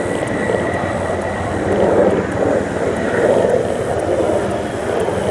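Military aircraft on the runway, its engines running with a steady noise that rises and falls slightly.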